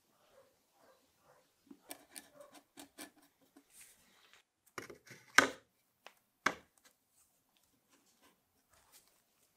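A run of light clicks and taps, then three sharper knocks about a second apart, the middle one loudest, as tools and parts are handled at a workbench.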